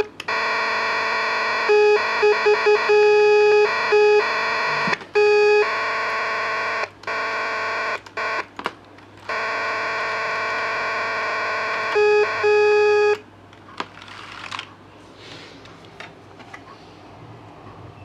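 Buzzy electronic tones from a simple homemade tone generator played through keyboard switches. The notes start and stop abruptly as keys are pressed, step between a few different pitches with some quick short stabs, and stop about 13 seconds in, leaving faint clicks.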